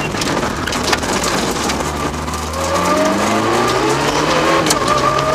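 Mitsubishi Lancer Evo VII rally car's turbocharged four-cylinder, heard from inside the car. First its tyres crunch over loose gravel at low speed, with stones clicking against the underbody. About two seconds in, the engine pulls hard, its pitch rising and dropping back at each upshift.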